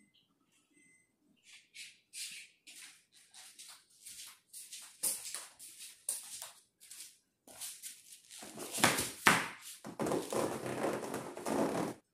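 Rustling and shuffling of a person moving about: a string of short, irregular rustles, then a longer, louder stretch of rustling in the last few seconds.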